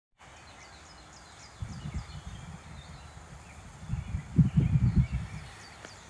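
Wind buffeting the microphone in irregular low rumbling gusts, strongest about four to five seconds in, over songbirds chirping, with a bird repeating short high chirps in the first second.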